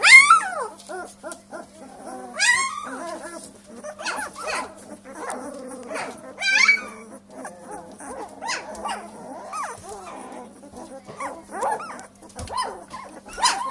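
Two-week-old Northern Inuit wolfdog puppies whimpering and squealing: short, high-pitched cries every second or two, the loudest right at the start.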